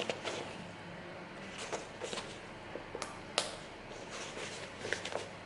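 A handbag being handled: scattered light rustles and small clicks, the sharpest about three and a half seconds in.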